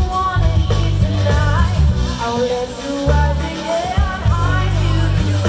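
Live band music over PA speakers, with a lead vocalist singing a wavering melody over a strong, heavy bass line.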